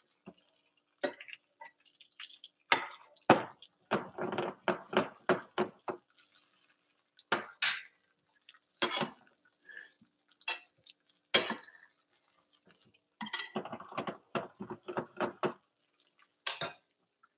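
Basting cauliflower steaks in a frying pan of hot butter: irregular clicks and small pops as a spoon knocks against the pan and the butter spatters, coming in clusters.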